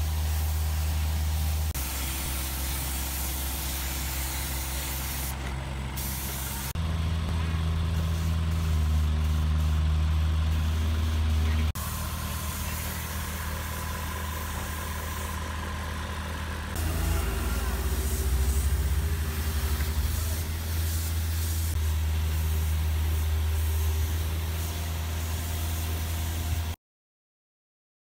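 Air compressor running with a steady low hum under the hiss of a gravity-feed spray gun spraying paint onto a steel frame. The level jumps at several points, and the sound cuts off about a second before the end.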